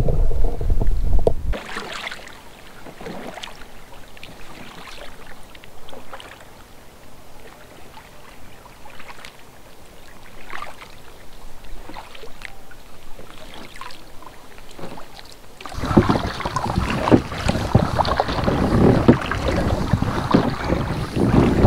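Paddle strokes splashing in lake water beside an inflatable pack raft. They are soft and spaced out at first, then loud and close for the last several seconds. Wind rumbles on the microphone for the first second or so.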